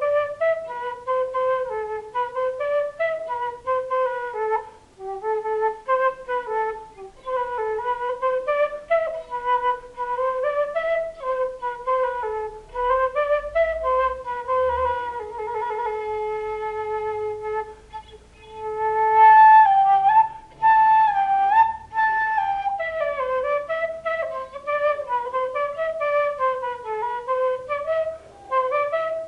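Quena, the Andean notched end-blown cane flute, played solo in a slow improvised melody, one note at a time in phrases broken by breaths. A long low note is held about fifteen seconds in, and then the line jumps higher and gets louder.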